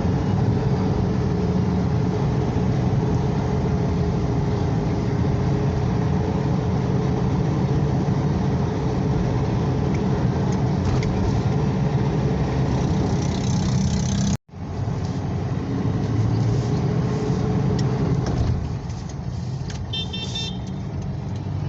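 Ford Ranger's engine and road noise while driving, a steady low drone. The sound cuts out for an instant about two-thirds through and is a little quieter near the end.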